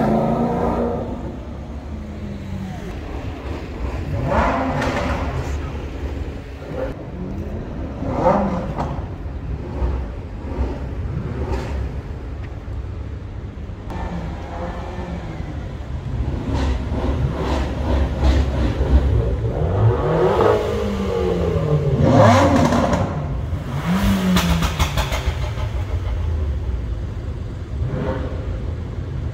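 Sports car engines revving and accelerating several times over, each engine note rising and then falling back. The loudest revs come about twenty to twenty-five seconds in. Some revs carry sharp sudden bangs, over a steady engine rumble.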